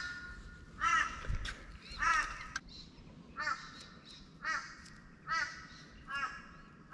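A crow cawing over and over, seven short calls about one a second, the later ones a little fainter.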